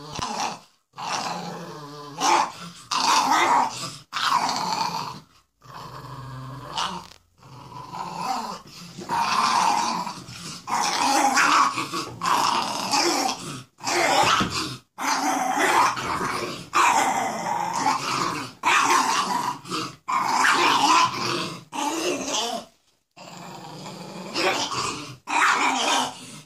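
Play growling from a French bulldog and a Staffordshire bull terrier tussling over a toy: repeated growls of a second or two, broken by short pauses.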